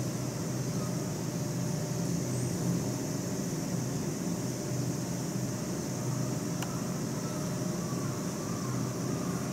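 Steady low mechanical hum with a high hiss over it, even throughout: background machine noise with no animal calls standing out.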